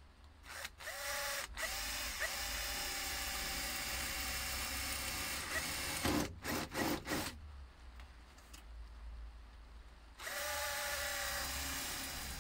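Cordless drill boring holes through the steel wheel-arch repair panel, holes for plug-welding the panel on, its motor whining at a steady pitch. It runs for about five seconds after two brief stops at the start, gives a few short trigger blips around six to seven seconds in, falls quiet, then runs steadily again for the last two seconds.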